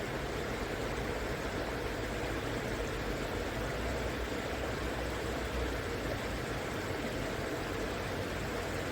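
River water flowing in a steady, even rush, with a low rumble underneath.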